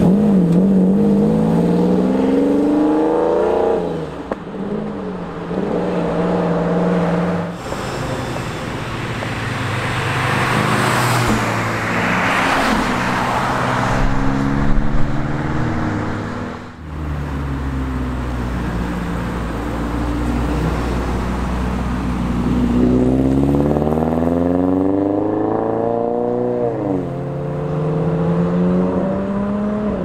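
Car engines accelerating past one after another. The exhaust note climbs in pitch over the first few seconds, there is a loud rushing exhaust near the middle, then a deep low rumble, and near the end another climbing rev that drops off.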